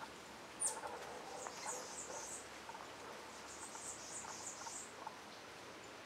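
Small songbirds calling with thin, high-pitched twittering in short runs, led by one sharp downward chirp about half a second in, which is the loudest sound.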